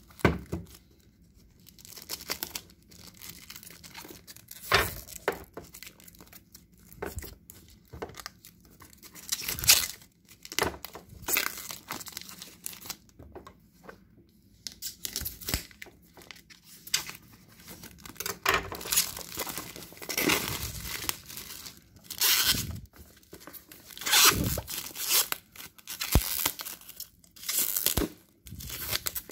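Clear plastic wrap being torn and peeled off a small cardboard box, crinkling in irregular bursts with short pauses between, along with the box being handled.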